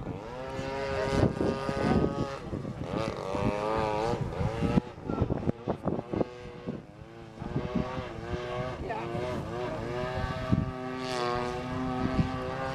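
Propeller engine of a radio-controlled model airplane in flight, its pitch rising and falling repeatedly as the throttle changes and the plane passes.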